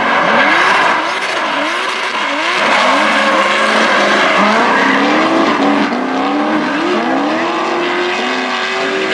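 Drift car engines revving hard, the pitch sweeping up and down in quick arches in the first couple of seconds and then held at steadier high revs, while the tyres squeal and hiss sliding sideways.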